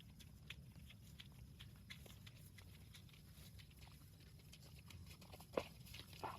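Near silence with scattered faint clicks and knocks. A sharper knock comes about five and a half seconds in, and another just before the end.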